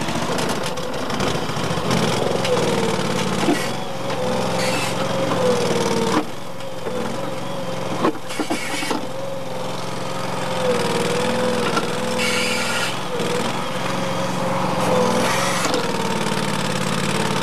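The engine of a home-built skid steer loader running steadily, with a wavering whine over it and a few sharp knocks around the middle.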